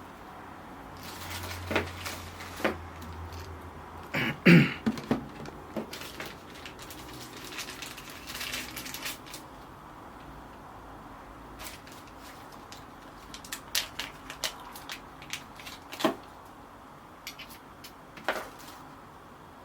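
Handling noise from a DJI RS3 gimbal and its accessories: scattered clicks and knocks of hard parts being handled and set down, the loudest knock about four and a half seconds in.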